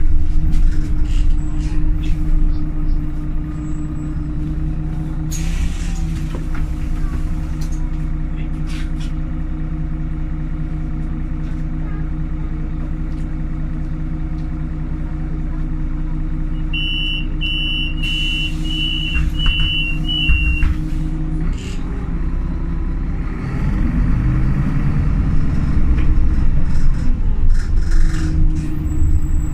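Onboard sound of a Solaris Urbino 18 III articulated bus with a Voith automatic gearbox: the engine runs steadily, with a short hiss of compressed air about five seconds in. Past the middle, a run of about six short high beeps overlaps a longer hiss of air. The engine note then rises in pitch and grows louder as the bus speeds up, and settles near the end.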